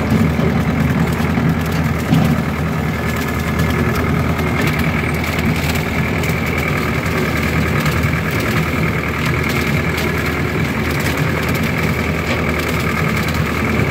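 Ford 6600 tractor's three-cylinder diesel engine running steadily under load while it drives a Famaq S-L 1.80 rotary cutter through dry corn stubble. A steady high whine sits over the engine sound and grows stronger about four or five seconds in.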